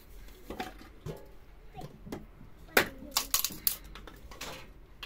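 Irregular sharp knocks and cracks, hard strikes like wood or food being chopped or broken, the loudest a little under three seconds in.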